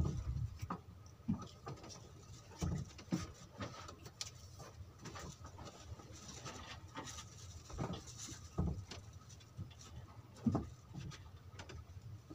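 Scattered soft knocks, dull thumps and taps on a small wooden boat's deck and sides, irregular and a second or more apart.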